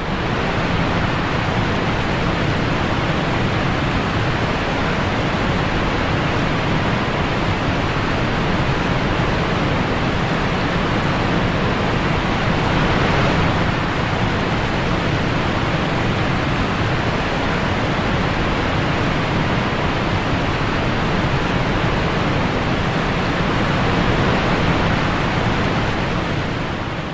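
Waterfall on Whychus Creek: a steady rush of falling water that fades out near the end.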